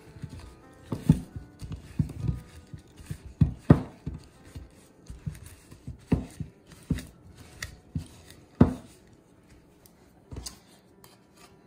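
Wire pastry blender chopping cold butter into a dry, lumpy oat crumble topping in a mixing bowl: irregular crunching scrapes and knocks of the blades against the bowl, with a few heavier strikes. The strokes thin out and stop near the end.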